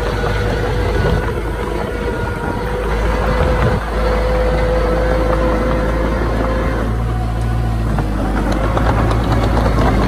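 Diesel engine of heavy earthmoving machinery running steadily, with a whine that stops about seven seconds in. The engine gets louder about four seconds in, and faint clanks come near the end.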